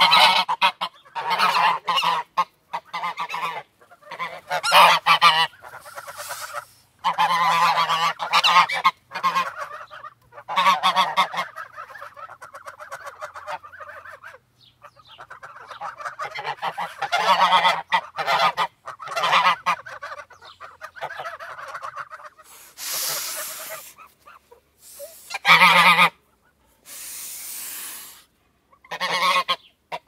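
A flock of white domestic geese honking and chattering in overlapping bursts, with short pauses between them.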